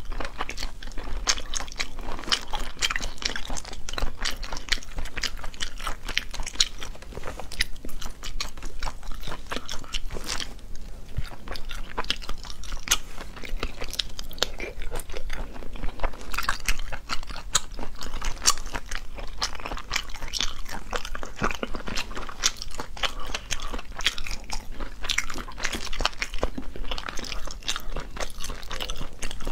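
Close-miked eating: chewing and crunching mouthfuls of cooked sea snail meat, with a steady run of sharp, wet clicks and smacks, and shells clicking as they are picked apart by hand.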